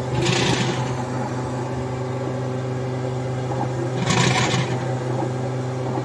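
DTF printer running: a steady machine hum, with short whirring bursts from the print mechanism near the start and again about four seconds in as the print-head carriage shuttles across the film.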